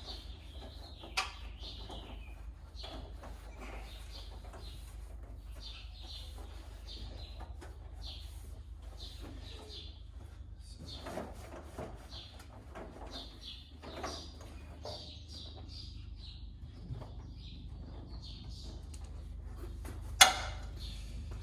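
Cloth wiping down a metal tool cart: many short, irregular, squeaky rubbing strokes over a steady low hum, with a sharp click about a second in and a louder knock near the end.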